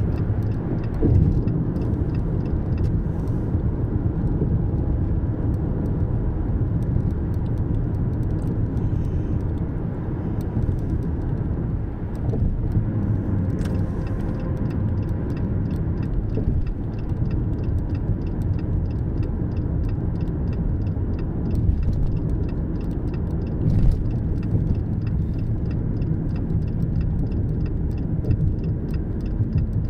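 Car travelling on an interstate highway: a steady low road and engine rumble, with a rapid, even ticking joining about halfway through.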